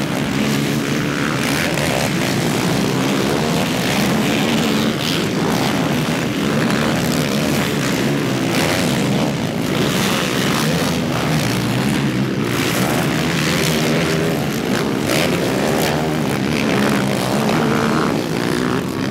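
Racing quad bike engines revving hard and easing off, the pitch rising and falling continuously as the quads race over a jump.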